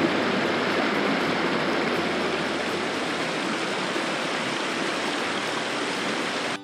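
Steady rush of flowing river water, an even sound without breaks that starts and stops abruptly at edits.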